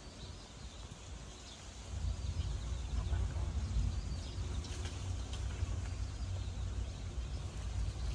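Outdoor ambience: a low, uneven rumble that grows louder about two seconds in, with a few faint bird chirps.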